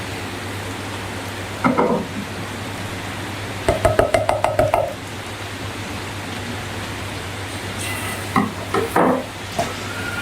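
Brief squeaky rubbing and squelching sounds from balloons and slime being handled: one short burst, then a rapid run of about eight squeaks, then a few more near the end, over a steady hiss and low hum.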